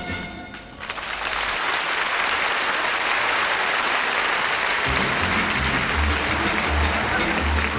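A harmonica tune ends within the first second, followed by audience applause. About five seconds in, band music with a steady low beat starts again under the applause.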